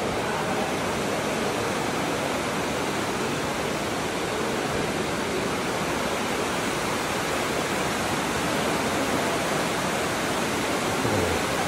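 A cave stream rushing steadily over rocks, a continuous even hiss of flowing water.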